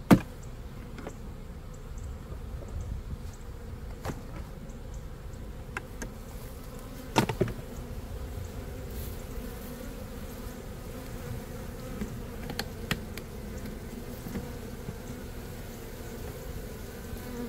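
Honey bees buzzing in a steady hum around an open hive. A few sharp knocks cut through it, the loudest right at the start and another about seven seconds in.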